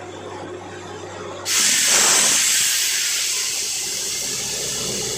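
Compressed air from a borewell drilling rig's air compressor bursting out with a sudden loud hiss about a second and a half in, then slowly fading. Before it, the rig's engine hums steadily.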